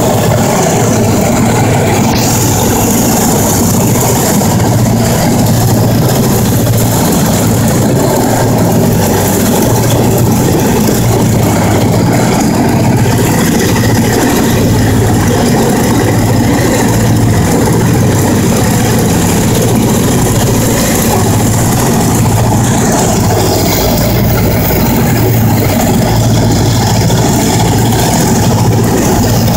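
Steady, loud drone of a Ford Tri-Motor's three radial engines and propellers in cruise, heard from inside the cabin, with a slight pulsing in the low drone and wind rushing over it.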